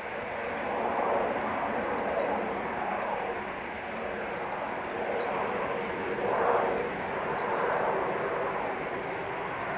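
Train running along the rails out of sight, a steady rumbling noise that swells and eases every second or two.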